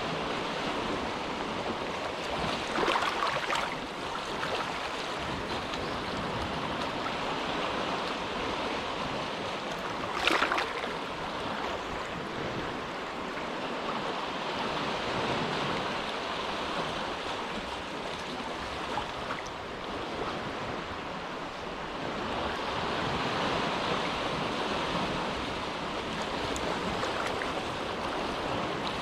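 Small, calm waves washing and lapping at the shore of a sheltered inlet, a steady wash that swells and eases every few seconds, with a brief louder splash about three seconds in and another about ten seconds in.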